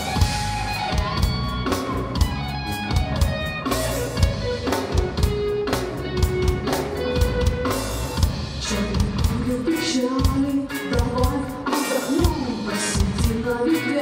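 Live rock band playing an instrumental passage: electric guitar lines over bass guitar and a drum kit.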